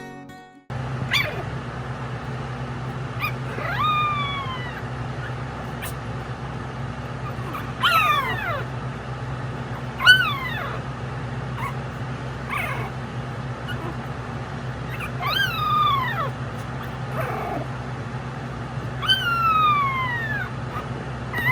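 Jack Russell Pomeranian puppies whining, high thin cries that each slide down in pitch, repeated every couple of seconds over a steady low hum.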